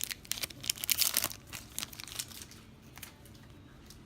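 Foil trading-card booster pack wrapper crinkling and tearing open: a quick cluster of crisp rustles, loudest about a second in, then quieter handling.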